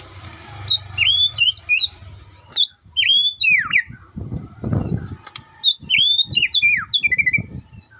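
A songbird singing three short phrases of quick, sliding whistled notes, each phrase a second or more long. Between the second and third phrases there are low thuds and a rumble.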